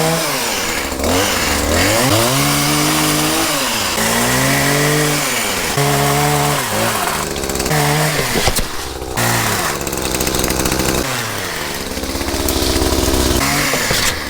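Two-stroke chainsaw cutting holly branches, revved up and let back down to idle over and over, about six or seven times.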